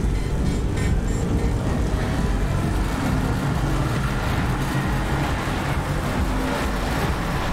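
A loud, steady, dense low rumble with a wash of noise over it, part of a film scene's soundtrack.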